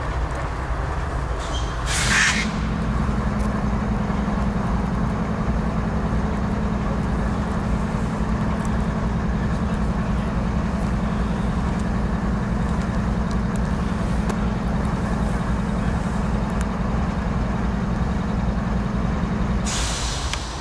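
Diesel locomotive running steadily with a low rumble. About two seconds in a short hiss sounds and a steady low hum comes on, which stops near the end, just before another short hiss.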